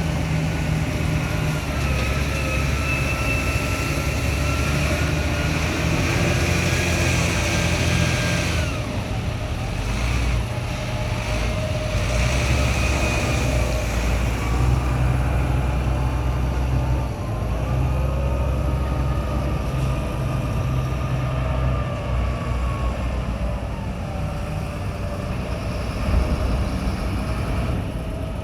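Wheel loader's diesel engine running and changing speed as it works, with a whine that rises and falls in pitch several times.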